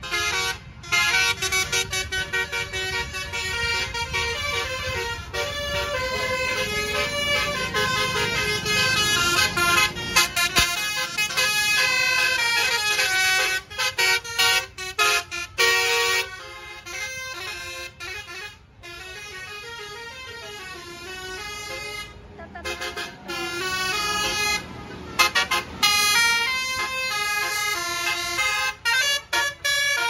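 Tour buses sounding Basuri 'telolet' multi-tone horns, playing quick runs of stepped melodic notes, over the low rumble of the bus engines. The horns ease off for a few seconds a little past the middle, then start again.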